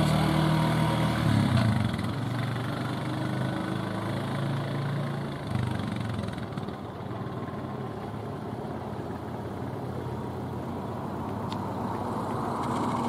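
Quad bike engine pulling away and fading as it rides off, its hum dropping in pitch about a second and a half in. Road traffic noise builds again near the end.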